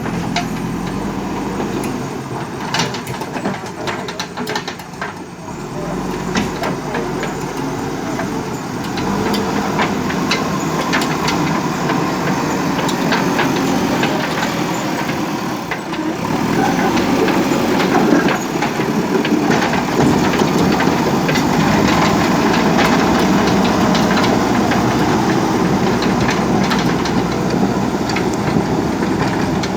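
JCB backhoe loader's diesel engine running steadily while working, with many short clicks and knocks over it. It gets louder about halfway through.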